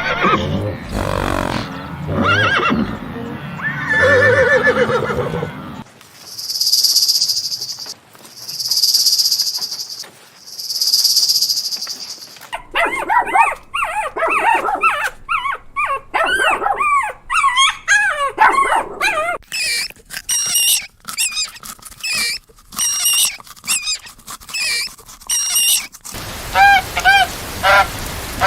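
A run of different animal calls, one after another: pitched calls at first, then three long hisses, then many short calls that bend up and down in pitch, and near the end short repeated calls over a steady hiss.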